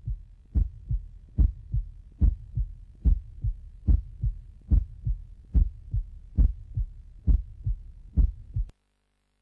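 Heartbeat sound effect: a steady double thump, lub-dub, at about seventy beats a minute, that cuts off suddenly near the end.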